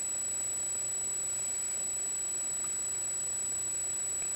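A steady, high-pitched electronic whine over a low, even hiss of room noise.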